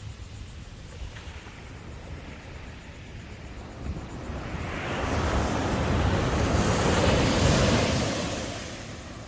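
Ocean surf washing onto the beach, with one wave swelling up and breaking about halfway through, then receding; some wind on the microphone.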